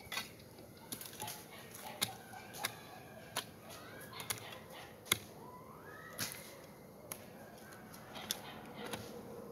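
A long-handled hoe striking dry soil and roots: sharp, irregular knocks about once a second, the loudest about halfway through.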